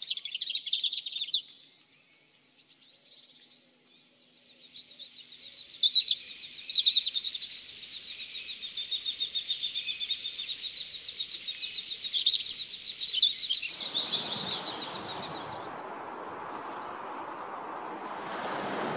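Birds calling: bursts of high-pitched chirps, then from about 5 s in a busy, rapid high chatter that goes on for about ten seconds. About 14 s in, a steady rush of wind and choppy water comes in and carries on after the chirping stops.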